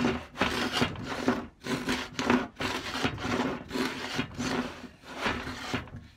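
Stanley No. 71 router plane paring the bottom of a channel in a wooden board, its iron scraping through the wood in short repeated strokes, about two a second, until the strokes stop near the end.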